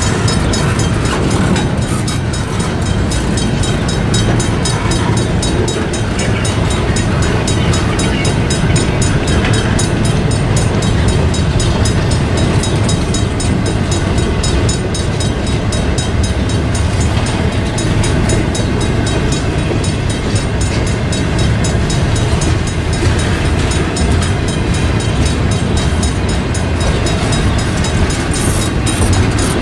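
Double-stack intermodal container train rolling steadily past a grade crossing, its steel wheels clattering over the rails, with the crossing bell ringing in a fast, even repeat.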